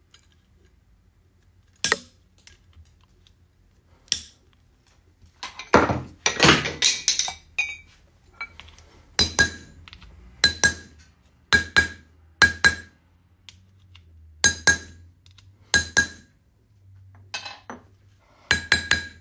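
Hammer striking a steel rivet-setting tool to peen a copper rivet over its burr: sharp metallic clinks, mostly in quick pairs or threes, each with a short ringing note. About two seconds in there is a single snap as end nippers cut off the rivet shank, and a denser run of blows comes about halfway through the first half.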